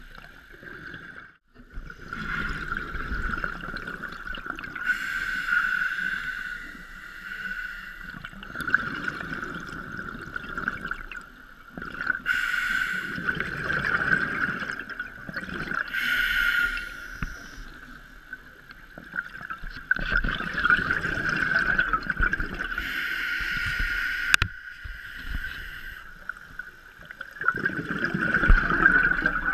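Scuba regulator breathing heard through an underwater camera: a slow cycle of breaths, each inhale a short hiss through the regulator and each exhale a longer rumble of bubbles. A steady high tone runs underneath.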